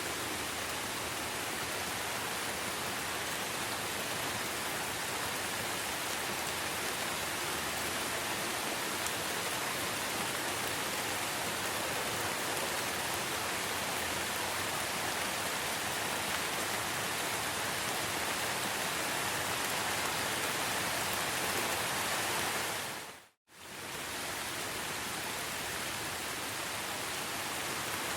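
Steady rain, an even hiss of many drops. About three-quarters of the way through it fades out to silence for a moment and comes straight back.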